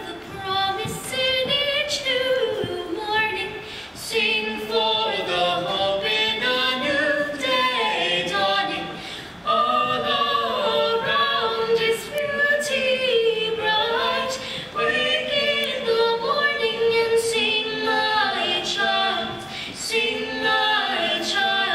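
Mixed-voice school choir singing together, several sustained vocal lines moving at once.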